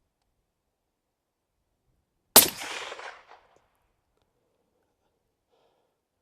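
A single rifle shot from a Sako Finnlight in .270 Winchester fitted with a Hausken sound moderator, about two seconds in. It is one sharp crack followed by about a second of echo dying away.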